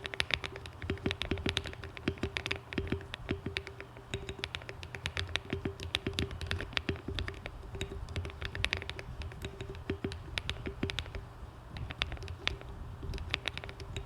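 Typing on a Monsgeek M1 aluminium-case mechanical keyboard with hand-lubed Akko Cream Yellow linear switches, tape mod and ASA-profile keycaps: a fast, continuous run of keystrokes that slows briefly near the end before picking up again.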